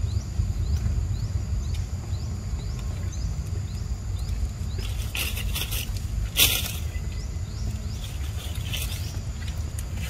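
Outdoor forest ambience: a steady high insect drone with a short rising chirp repeating about twice a second over a low steady rumble, and two brief rustling scrapes about five and six and a half seconds in.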